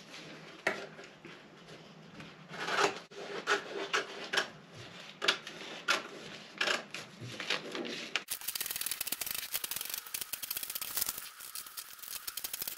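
Scissors cutting through a paper sewing pattern: separate snips and paper rustles, then about eight seconds in a sudden change to a fast, dense crackle.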